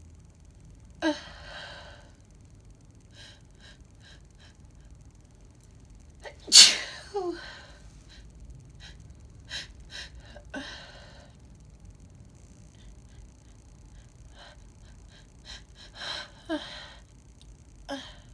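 A woman sneezing several times, with quick gasping in-breaths between the sneezes; the loudest sneeze comes about six and a half seconds in.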